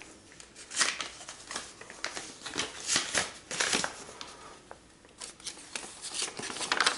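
Hands handling small objects off to the side: an irregular run of short rustles and scrapes while a hair sample is being fetched.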